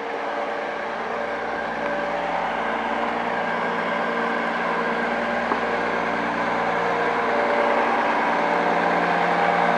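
Diesel engine of a large Liebherr mobile crane running steadily at an even speed, growing gradually louder.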